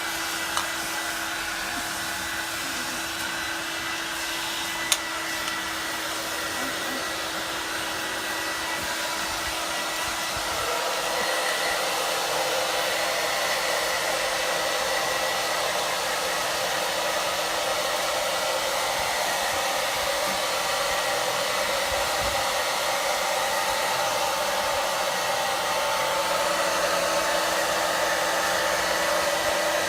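Hand-held hair dryer blowing steadily while drying a Pekingese's coat. It grows louder about ten seconds in, and there is a single sharp click about five seconds in.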